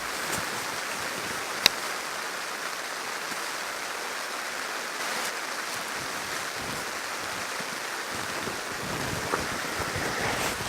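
Steady rain falling, an even hiss, with one sharp click about two seconds in.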